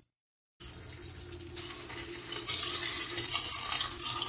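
Minced-meat seekh kababs frying in bubbling oil in a wok: a steady sizzle and crackle that starts abruptly just over half a second in.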